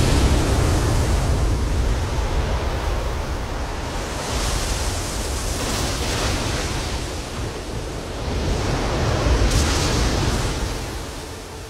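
Sea waves surging and crashing: a steady rushing noise with a deep rumble underneath, swelling about four seconds in and again near ten seconds, then easing off.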